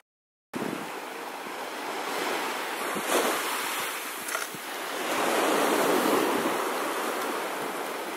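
Small surf waves breaking and washing in the shallows, with wind on the microphone. The sound drops out for about half a second at the start, then swells louder a little past the middle as a wave breaks.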